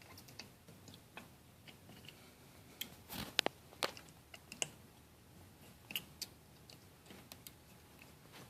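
Faint, scattered small clicks and taps from hand-fitting faucet parts, as a spring-loaded rubber washer is pressed into a Delta faucet's valve body.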